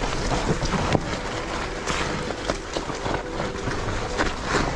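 Electric mountain bike rattling over rough off-trail ground, with frequent sharp knocks and clicks from the bike and tyres on dirt, and wind on the microphone.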